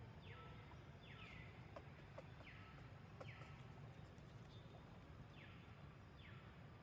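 Faint animal calls: short, raspy calls, each falling in pitch, repeated mostly in pairs about a second apart over a low steady hum.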